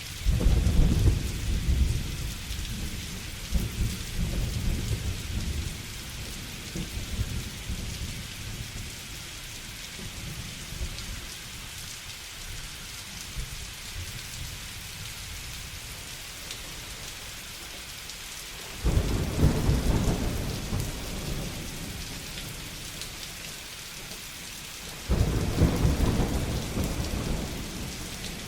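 Steady heavy rain with thunder rumbling. A rolling peal at the start fades out over about six seconds. Two more thunderclaps break in suddenly about two-thirds and nine-tenths of the way through, each rolling off over a few seconds.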